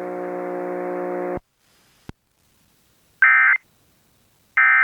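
A steady buzzing hum cuts off about a second and a half in, then a faint click, then two short digital data bursts about a second apart. The bursts are the Emergency Alert System's end-of-message (EOM) code from the station's EAS encoder, which marks the end of the alert.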